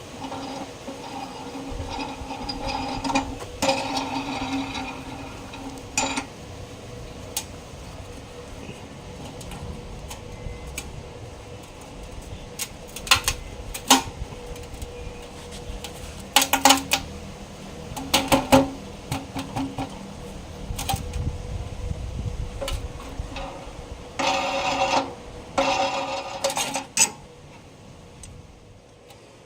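Metal parts and hand tools being handled and worked: scattered sharp clicks and clanks, with stretches of metal scraping and rattling at the start and again near the end.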